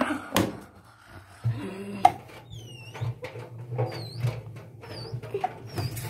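LG front-loading washing machine in its rinse cycle: a low, pulsing hum as the drum turns, with scattered knocks and clicks and several short, high squeaks.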